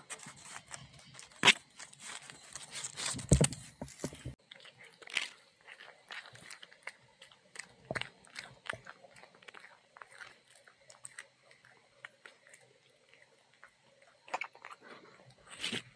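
Cat chewing and crunching a freshly caught shrew close to the microphone: a rapid run of crunches and bites in the first few seconds, then scattered crunching.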